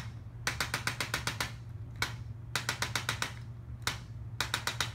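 Impulse chiropractic adjusting instrument firing quick runs of sharp clicks against the middle back, each run of several thrusts lasting about a second, with a single click between runs.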